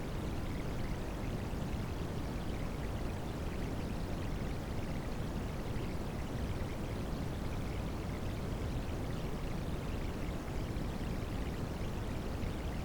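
Rain sounds mixed with white noise: an even, unbroken rush of water noise, heaviest in the low end. No separate drops or changes stand out.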